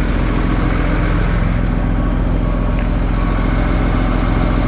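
Heavy truck engine running steadily with a constant low hum, as from a concrete pump truck or concrete mixer truck working on site.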